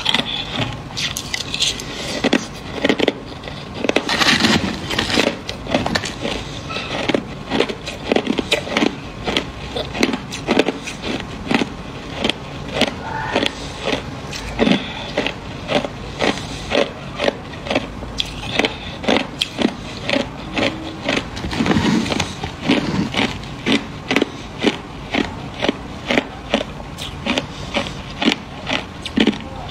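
Crushed ice being chewed: a steady run of crisp crunches, about two to three a second.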